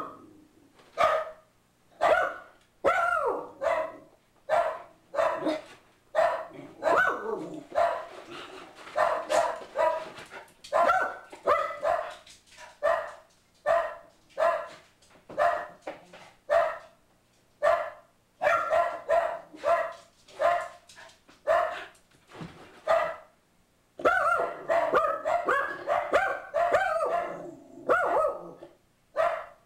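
Pug mix dog barking over and over in short, sharp barks, often several in quick succession with brief pauses between runs: alarm barking at a stranger at the door.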